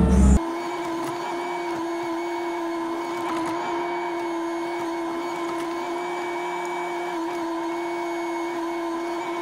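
A loud low engine rumble cuts off abruptly about half a second in, leaving a steady mechanical whine from a running machine.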